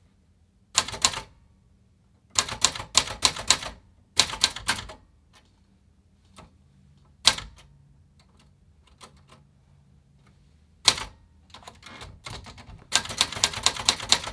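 Remington Streamliner manual typewriter being typed on in a type test: bursts of key strikes hitting the platen, a few single keystrokes with pauses between, then a fast run of typing near the end. Some keys stick a little on the sides.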